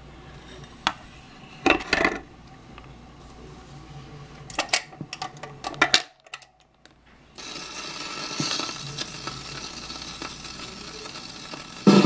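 Clicks and clatter of a 45 rpm single being handled and dropped onto the spindle of an RCA record player. From about seven seconds in comes a steady hiss of stylus surface noise as the needle rides the record before the music begins.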